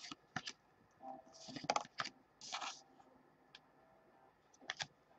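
2015 Gypsy Queen baseball cards being flipped through by hand: faint, scattered light clicks and a few short sliding swishes as cards are slid off the stack one by one.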